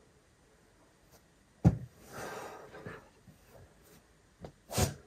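A sharp knock about one and a half seconds in, followed by a climber's long forceful exhale and another sharp breath near the end, as he settles into a sit start on the boulder.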